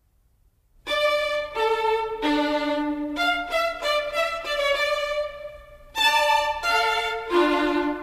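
Background music with a violin melody, coming in about a second in after near silence, with a brief lull just before six seconds.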